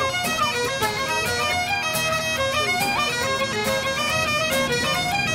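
Bagpipe music playing a quick melody, with the notes changing several times a second.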